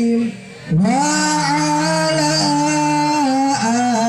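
Sholawat being sung: one voice holding long drawn-out notes. It breaks off briefly about half a second in, then holds one long note for about two seconds.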